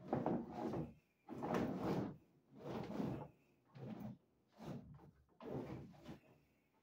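Heavy 4/0 service cables being pulled through 2-inch PVC conduit and dragged across a wood floor: a scraping, sliding rush repeated in about seven strokes, each under a second.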